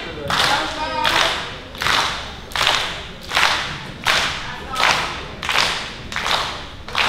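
Steady rhythmic claps or thumps in a large hall, one roughly every three-quarters of a second, with a voice heard briefly about a second in.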